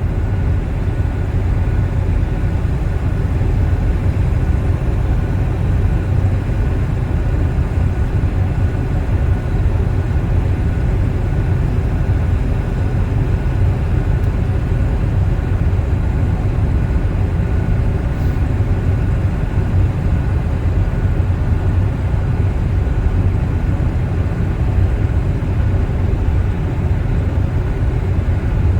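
Steady low rumble of a vehicle driving, engine and road noise heard from inside the cab.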